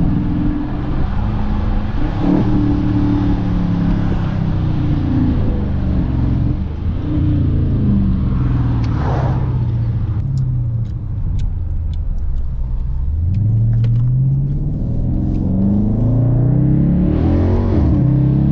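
Dodge Charger R/T's 5.7-litre Hemi V8 exhaust heard from inside the cabin, its active exhaust valve held open in Track mode. The engine note falls through downshifts as the car slows, then rises in steps through the gears as it accelerates in the second half. Faint regular ticking sounds for several seconds midway.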